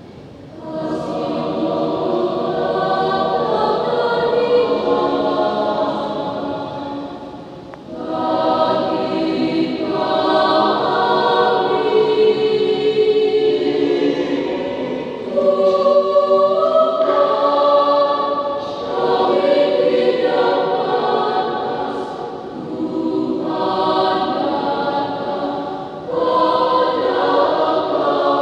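Mixed school choir singing a hymn in Indonesian, several parts in sustained chords with no accompaniment, phrase after phrase with short breaths between them.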